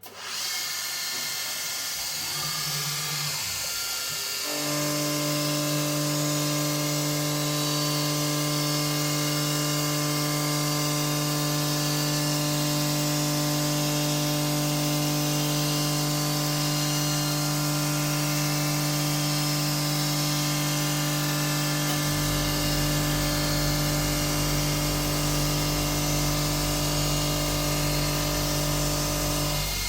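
DIY CNC milling machine running with its spindle spinning: a steady high whine and hiss that comes up at the start, with a steady low hum joining about four seconds in.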